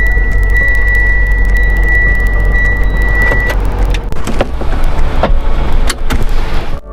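Steady low rumble of a car driving, heard from inside the cabin. A steady high-pitched tone runs for about the first half, and a few sharp clicks come in the second half.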